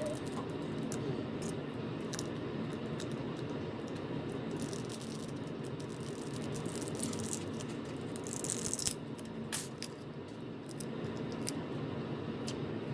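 Small repair tools clicking and scraping lightly against a smartphone's screen and frame, with a sharper click about two thirds through, over a steady low hum.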